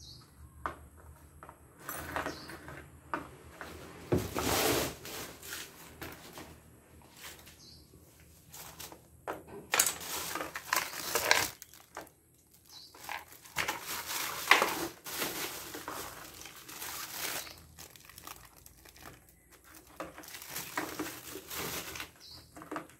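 Clear plastic wrapping crinkling and rustling in several separate bursts as the wrapped rack parts are handled.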